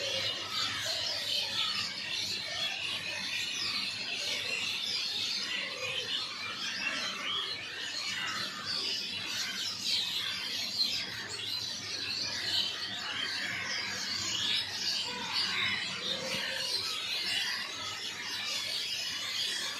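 A flock of birds chirping all at once: a dense, unbroken chorus of short, high overlapping chirps and squeaks.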